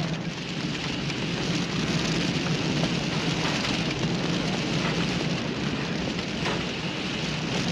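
Fire hose spraying water onto a burning room, a steady rushing spatter over the fire, with a steady low hum underneath.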